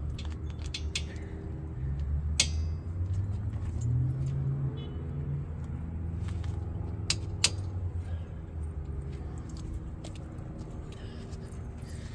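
A few sharp metallic clinks of a ratchet, socket and tools being handled at a brake caliper, over a steady low rumble. The rumble shifts in pitch between about two and five seconds in.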